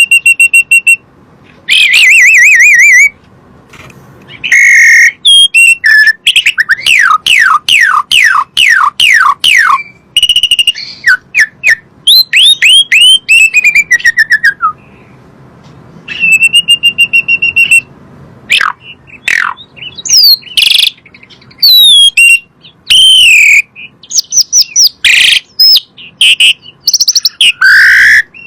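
Asian pied starling (jalak suren) singing a loud, varied song with short pauses between phrases. It mixes held buzzy notes, quick runs of falling whistles and wavering whistled phrases.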